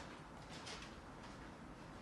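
Quiet room tone with a couple of faint soft clicks about halfway through.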